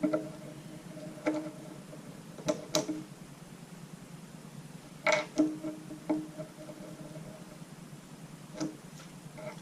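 Sharp plastic clicks and clacks from a Qiyi Galaxy V2 M magnetic Megaminx being turned and pried at while it is being taken apart, about half a dozen separate clicks a second or more apart.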